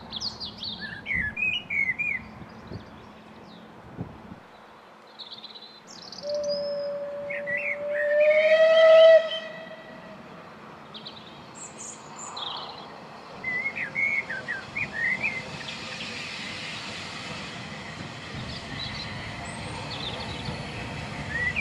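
Steam locomotive whistle sounding one long note for about three seconds, starting about six seconds in, swelling and rising slightly in pitch before cutting off, then the locomotive approaching with a growing rumble in the second half. Birds chirp throughout.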